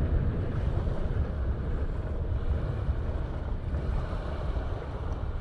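Wind buffeting the microphone in an uneven low rumble, over small waves lapping and washing up a sandy shore.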